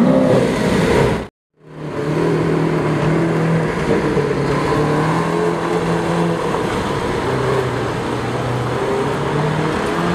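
Lamborghini Aventador S's V12 engine: it opens on the tail of a blip of revs, cuts out briefly about a second in, then runs at low revs as the car pulls slowly away, its note stepping slightly up and down.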